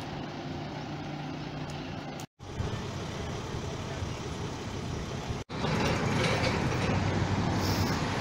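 Outdoor road sound: a vehicle engine idling with a steady low hum, then louder road-traffic noise. The sound cuts out abruptly twice, about two seconds in and again about five and a half seconds in.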